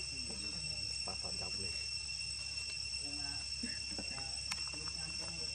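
Steady high-pitched drone of insects, several even tones held without a break.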